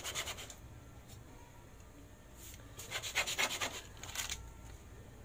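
Heart-shaped metal cake ring pressed and twisted into a chocolate sponge sheet on baking paper to cut out hearts, giving short rubbing scrapes: a brief cluster at the start and a longer one about three seconds in.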